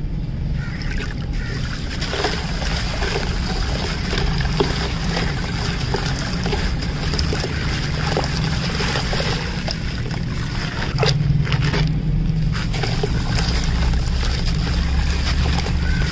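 A sand-and-cement shape crumbling between the hands, gritty grains crackling and trickling down into a tub of water, with no break. A steady low rumble runs underneath.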